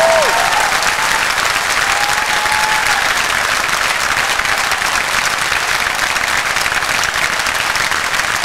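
A large theatre audience applauding loudly, a dense even clatter of many hands clapping.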